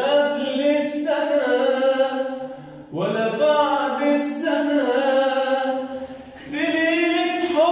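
A man singing a classic Arabic song unaccompanied, in long held notes that waver and bend in pitch, pausing briefly for breath about three and six seconds in.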